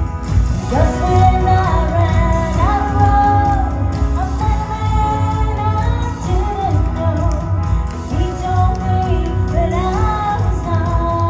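Praise song: a sung melody over a band with a steady low beat, the voice coming in about a second in.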